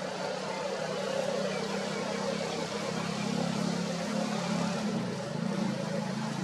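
An engine running steadily, a low hum under a broad noisy rush.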